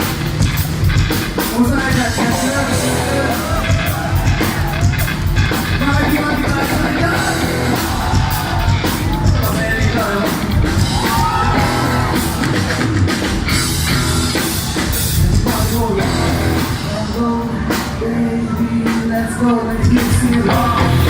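Live rock band playing a hard, fast song: a singer moves between sung and shouted lines over loud guitars and a driving drum beat.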